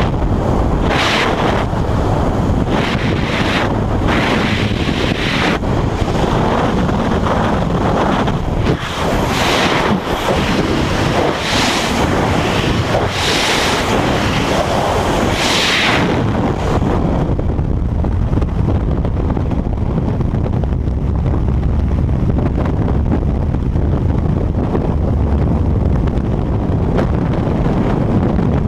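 Freefall wind rushing loudly over a skydiver's helmet-mounted camera microphone. It buffets in gusts for the first sixteen seconds or so, then settles into a steadier, duller low rumble.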